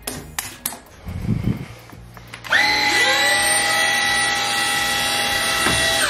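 Xiaomi Jimmy JV51 cordless stick vacuum's motor switched on about two and a half seconds in: it spins up with a rising whine and then runs at a steady high pitch, starting to wind down at the very end. A few light clicks of handling come before it.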